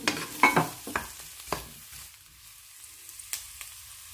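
Garlic and red onion sizzling in oil in a frying pan, with a spatula stirring and knocking against the pan several times in the first second and a half, then a quieter steady sizzle.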